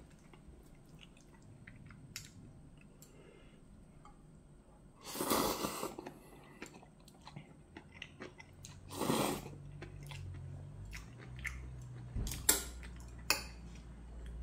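Instant ramyun noodles being slurped and chewed: two loud slurps, about five and nine seconds in, between soft chewing and small clicks.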